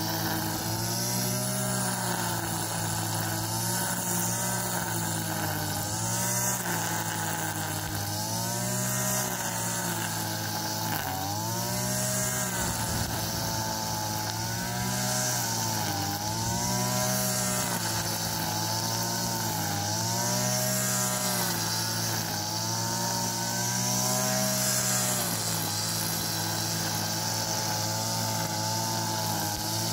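Backpack two-stroke petrol brush cutter running at high revs while cutting grass. Its engine pitch swings up and down about every two seconds as the cutting head is swept through the grass and takes load, and it runs steadier near the end.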